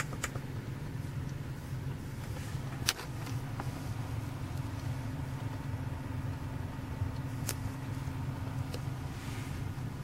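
Steady low hum of a car with the ignition on, heard from inside the cabin, with a few sharp clicks scattered through it, the loudest about three seconds in.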